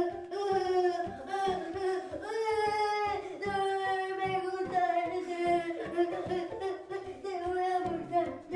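A song with a woman's voice singing long held notes over a quick, steady beat.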